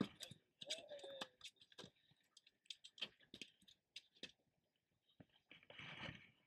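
Faint, irregular taps and clicks of a freshly landed striped bass flopping on a boat deck, with a short rustle near the end.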